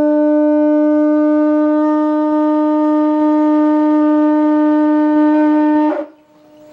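Conch shell blown as a horn: one long, loud, steady note that holds its pitch, then cuts off about six seconds in.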